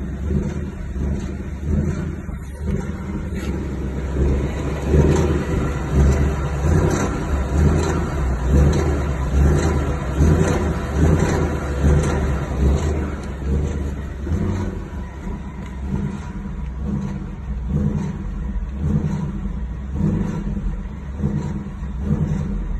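2019 Ford Mustang GT's 5.0 L V8 running on the road, its level swelling and falling about once a second as the throttle is worked. It carries the noise that comes when letting off the gas, which TSB 19-2140 did not cure.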